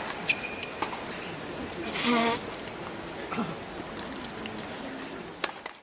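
Indoor tennis court ambience during practice: a low steady background with a few sharp clicks of balls and rackets. About two seconds in there is a short, buzzing squeak.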